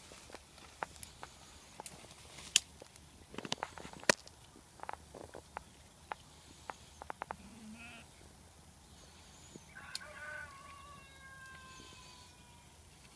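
Goats browsing through brush, snapping and crackling twigs and branches, with two sharp cracks about two and a half and four seconds in. About ten seconds in, a goat gives one drawn-out bleat that sinks slightly in pitch.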